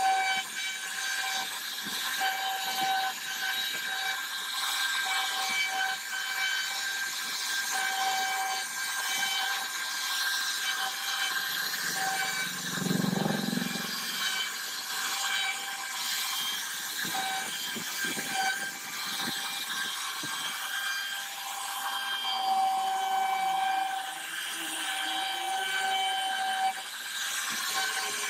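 CNC router spindle whining steadily while its bit carves relief grooves into a wooden door panel, with the hiss of the cutter chipping wood. A brief low rumble comes about halfway through.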